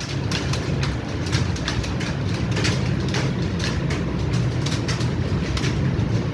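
Computer keyboards typed on fast by several people at once: a dense, irregular patter of key clicks. Under it runs a steady low rumble.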